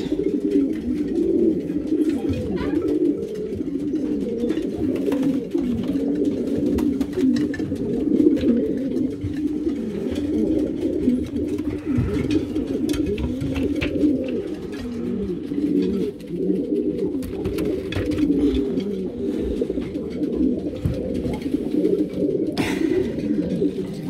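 Many racing-pigeon cocks cooing together, a dense, continuous chorus of overlapping low coos. The cocks are calling to their hens from the nest bowls, roused in courtship.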